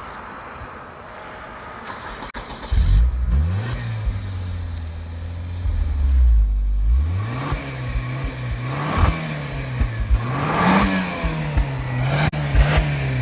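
Volvo 940 Turbo's four-cylinder turbo engine, with a failed turbocharger, starts about three seconds in and runs, then is revved up and down several times before settling back to idle.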